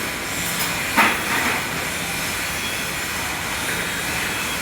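Steady hissing and crackling of an electric welding arc, with a short sharp knock about a second in.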